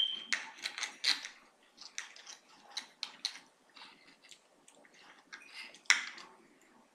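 Table knife sawing through a ribeye steak, with a string of scrapes and clicks of the knife and fork against the plate. A short ringing tone right at the start, as the plate is struck, and another sharp click about six seconds in.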